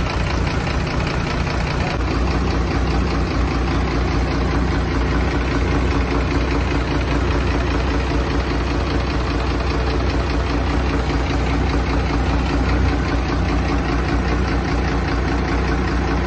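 Rebuilt six-cylinder truck diesel engine idling steadily.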